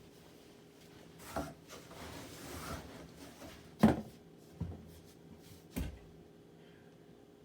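Casablanca Panama II ceiling fan's XLP motor humming faintly on medium speed, with a few irregular knocks and a rustle over it, the loudest knock about four seconds in.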